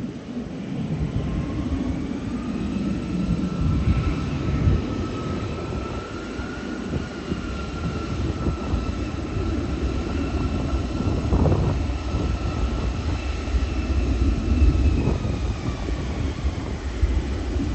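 Jet airliner passing low overhead: a heavy engine rumble with a thin engine whine above it that drifts slightly in pitch and fades near the end.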